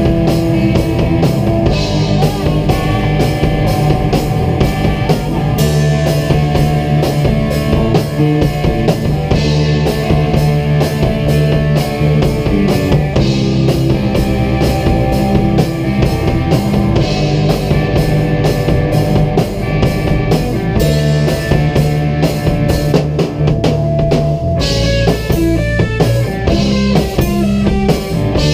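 A rock band jamming live: a drum kit keeps a steady, busy beat under amplified electric guitars, loud and continuous, with the cymbals washing brighter near the end.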